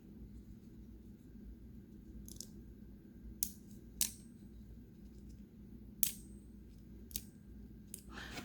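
Axis-lock folding comb knife being worked open and shut in the hand, its lock snapping with about six sharp metallic clicks at uneven intervals.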